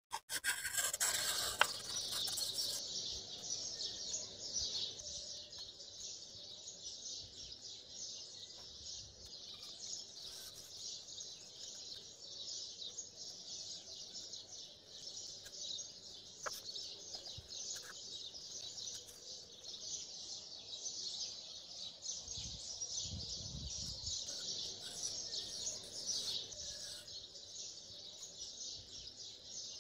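A steady, dense chorus of birds chirping, laid over the drawing as a calm ambience track. It runs through with a few faint clicks and taps from the compass and marker on paper.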